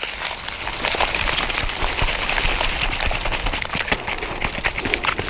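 Dry rustling and crackling of onion foliage and soil being handled as red onions are lifted from the bed.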